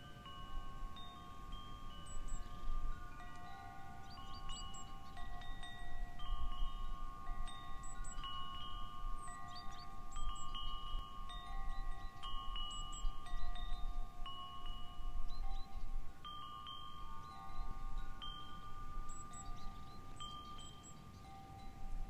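Wind chimes ringing as the wind swings them: several pitched tones are struck at irregular moments and ring on, overlapping one another. A steady low rumble sits underneath.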